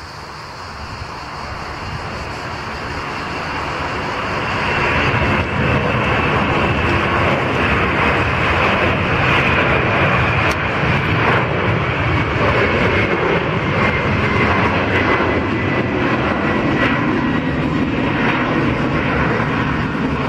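Four-engined Boeing 747-400 jetliner taking off and climbing out at takeoff thrust. The engine roar builds over the first few seconds to a loud steady rumble, with a high whine slowly falling in pitch.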